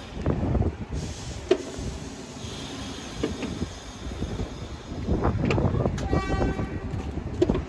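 New York City subway train running on the track: steady rumble with sharp wheel-on-rail clicks. About six seconds in there is a brief pitched tone.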